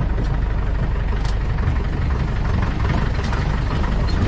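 An off-road jeep's engine running steadily as it drives the rough forest track, with a few light knocks from the vehicle over the bumps.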